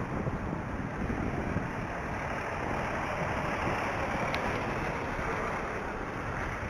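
Steady rush of wind on the microphone of a moving bicycle, mixed with the noise of traffic on the road alongside, swelling slightly midway.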